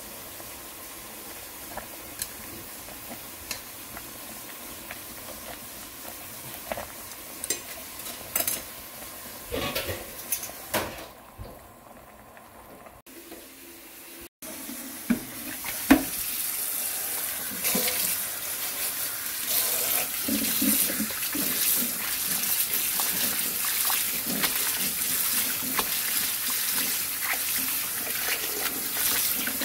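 Tap water running into a bowl of blanched greens in a sink, with splashing as the greens are rinsed; this loud, steady hiss starts about halfway through. Before it, quieter clicks and knocks come as the greens are lifted from the pot.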